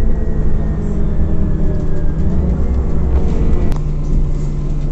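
Scania Omnicity CNG city bus heard from inside the cabin while driving: steady low engine and road rumble, with the engine note changing and then holding steady about three-quarters of the way through. A single sharp click sounds just before that change.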